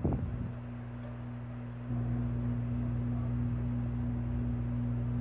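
Hot air rework station blowing on a motherboard MOSFET to melt the solder: a steady low hum that gets louder about two seconds in.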